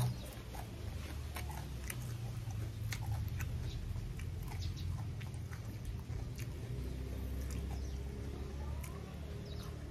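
Close-up chewing of raw beef and liver: wet smacking and short clicking mouth sounds repeated throughout, over a low steady hum.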